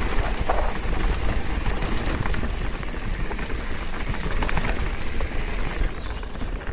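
Specialized electric mountain bike ridden down a dirt trail: tyres rolling over the ground with many quick clicks and rattles, over a steady low rumble of wind on the microphone. The hiss thins out about six seconds in.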